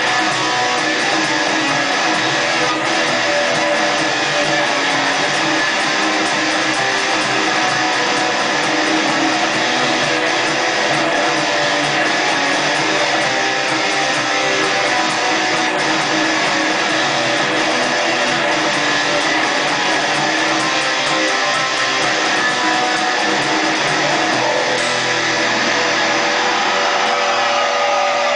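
Instrumental guitar music with strummed guitars and a bass line, steady and loud, with no singing.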